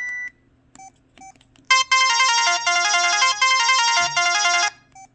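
Preloaded ringtone on a Casio G'Zone Boulder flip phone playing through its small speaker: a quick electronic melody of many short notes lasting about three seconds. A couple of short key beeps come before it and one after, as the phone's menu is stepped to the next ringtone.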